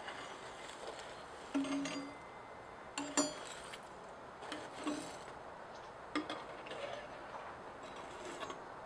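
Small forged steel knife blades clinking and scraping as they are handled and laid down on a bed of ash for annealing: a handful of light metallic clinks, spaced a second or more apart.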